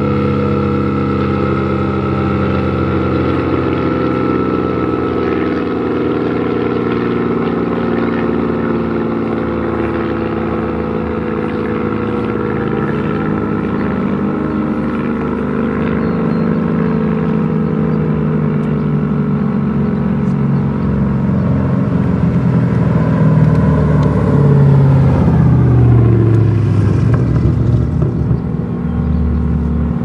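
Soundmaster 115 outdoor warning siren sounding its steady alert signal: a chord of several pitches that drifts slowly lower, swelling louder for a few seconds near the end.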